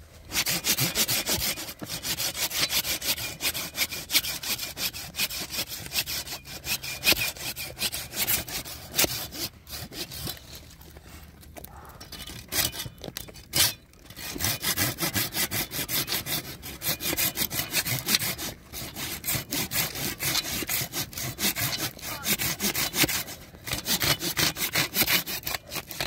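Wood being cut with a hand saw: quick, steady back-and-forth strokes that ease off for a few seconds near the middle, then pick up again.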